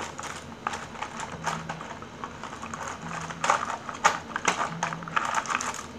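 Coloring utensils clicking and clattering together as a hand rummages through them blindly to pick colors, in irregular runs of taps that are loudest about halfway through.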